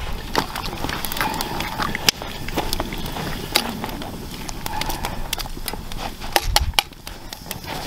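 Wood fire crackling with irregular sharp pops, mixed with a metal ladle stirring and knocking in a cast iron Dutch oven.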